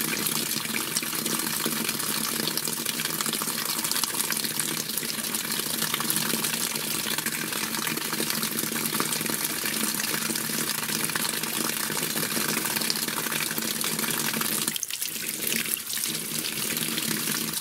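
Outdoor tap running full, a steady stream of water splashing onto paving and over a smartphone held in it, with a short drop in level about fifteen seconds in.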